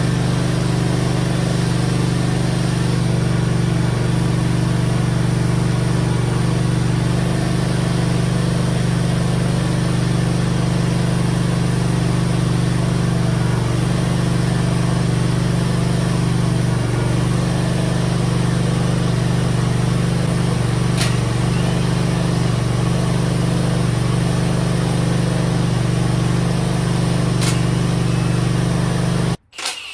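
A motor-driven machine running steadily: a constant low drone with a broad hiss over it, and two faint ticks late on.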